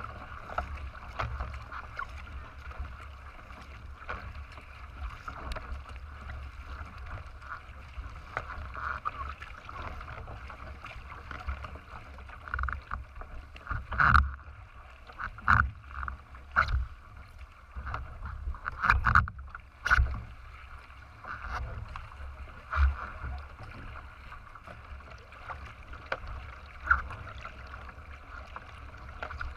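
Water rushing and splashing along the hull of a racing kayak as it is paddled, with low wind rumble on the microphone. About halfway through comes a run of louder, sudden splashes and knocks lasting several seconds.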